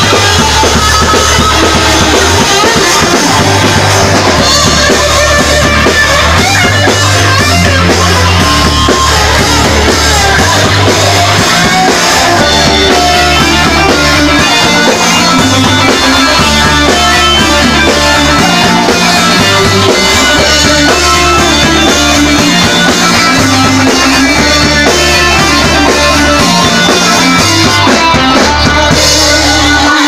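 Folk-metal band playing a Celtic dance tune live, loud, with drum kit, electric guitar and a bass line moving in held low notes.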